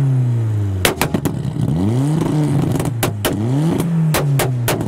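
Mk1 Ford Escort Estate's engine revved in three quick blips, each rev climbing fast and falling away slowly, with sharp pops and bangs from the exhaust as the revs drop.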